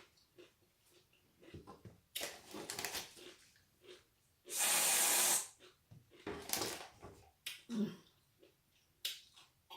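Aerosol can of whipped cream spraying: a sputtering spurt about two seconds in, then a steady hiss lasting about a second, followed by a shorter spurt.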